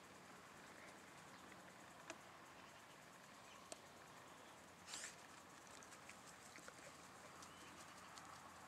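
Near silence: a faint steady hiss with a few small ticks and one brief rustle about five seconds in.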